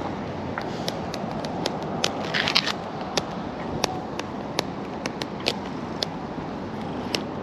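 A cat's claws scratching and catching on denim jeans: irregular short scratchy clicks, with steady wind noise on the microphone.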